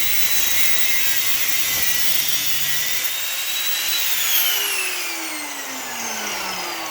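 Angle grinder cutting through metal with a steady high whine and hiss; about four seconds in it is let off and the motor winds down, its whine falling steadily in pitch.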